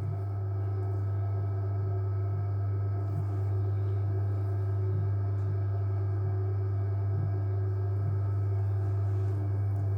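JW Ratcliffe and Sons electric pottery wheel running, its motor giving a steady hum: one strong low tone with fainter steady tones above it.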